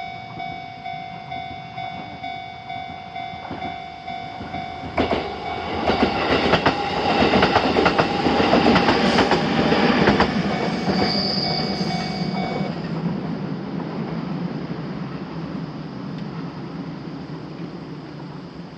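Japanese railway level-crossing alarm sounding in a steady pulse of about two rings a second while an electric train of the JR Minobu Line passes, its wheels clicking over the rail joints. The alarm stops about two-thirds of the way through, and the train's rumble fades away.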